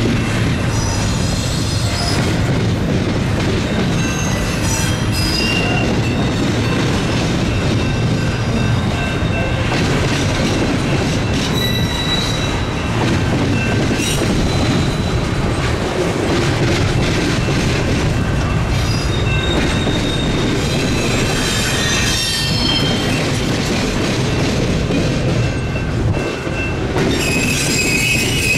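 Double-stack intermodal well cars rolling past on a curve: a steady rumble of steel wheels on rail, with high-pitched wheel flange squeal that comes and goes as the wheels grind through the curve.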